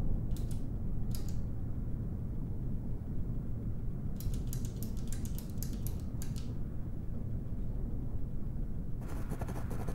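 A steady low rumble with passages of quick, dry scratching over it: two short scratches at the start, a longer run of rapid scratches in the middle, and more starting near the end.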